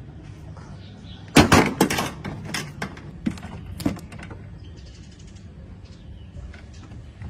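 A quick run of hard knocks and clatters starting about a second and a half in and lasting about two and a half seconds, loudest at the start, over a faint steady low hum.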